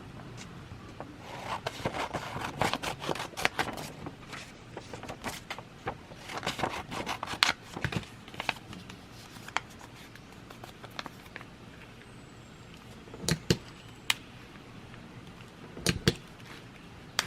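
Sheets of bond paper rustling and crackling as they are handled, in two bursts, followed by a few sharp clicks near the end.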